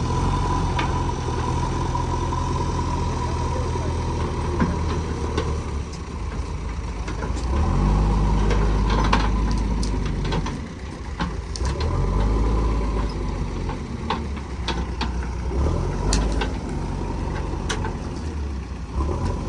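Vehicle engines running, rising in revs three times in long surges with a steady whine above them, and scattered sharp clicks and knocks: a stuck vehicle being worked out of mud.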